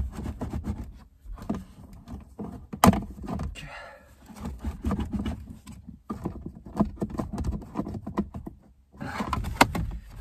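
Plastic lower dashboard trim of a BMW E36 being worked loose and handled under the steering column: an irregular run of clicks, knocks and rattles, with one sharp click about three seconds in.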